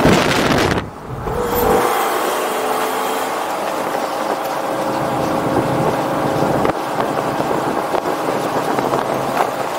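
Straight-piped 2004 Lamborghini Gallardo's 5.0-litre V10 and road noise while driving, with a sudden short drop in loudness about a second in before settling into a steady drone.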